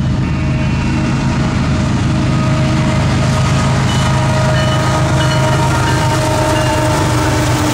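Kansas City Southern freight train led by a GE ES44AC, with EMD SD70ACe diesel locomotives behind it, approaching and passing close by. The locomotives give a loud, steady low engine drone and rumble, and a horn's steady chord tones sound over it.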